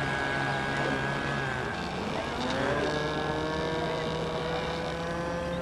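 Engines of a radio-controlled twin-engined model seaplane in flight, a steady buzzing drone. About two seconds in, the engine note changes: a tone climbs and then holds steady.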